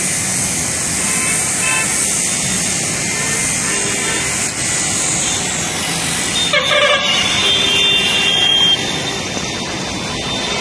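Steady noise of road traffic, with a vehicle horn sounding briefly about six and a half seconds in.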